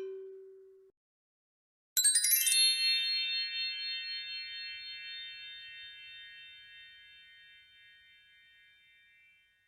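Bell tree struck in a quick glissando of small bell tones about two seconds in, then ringing on and slowly fading away over about seven seconds. A steady tone from the previous effect dies away at the start.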